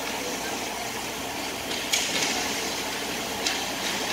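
Ice rink game ambience: a steady hum with the scrape of hockey skates on the ice. A sharp, hissing scrape about two seconds in and a smaller one near the end.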